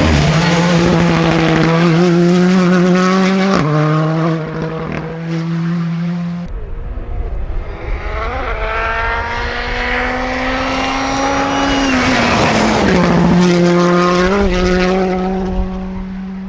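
Porsche 992 GT Rally car's engine running hard at high revs. It steps once a few seconds in, eases off, climbs slowly for several seconds, then drops sharply and holds steady again.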